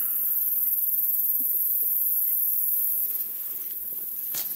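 Steady high-pitched insect chorus that drops away about three seconds in, with a single sharp click near the end.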